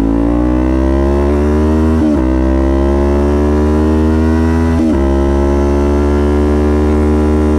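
Kawasaki Ninja 400's 180-degree parallel-twin engine pulling hard through the gears. Its pitch climbs steadily and drops sharply at two upshifts, about 2 and 5 seconds in.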